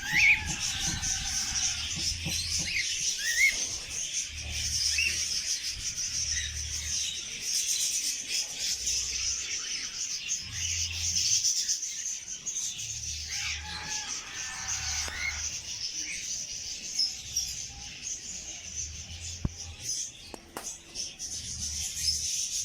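Birds chirping, with short rising calls heard now and then over a steady high-pitched chorus. A faint low regular beat runs underneath.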